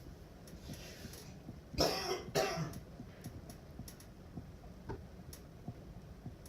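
A person coughing twice in quick succession, about two seconds in, with a few faint clicks afterwards.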